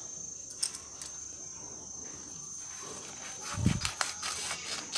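Scissors cutting a sheet of paper, with a few snips and paper handling in the second half and a dull thump about three and a half seconds in. Insects chirr steadily in the background.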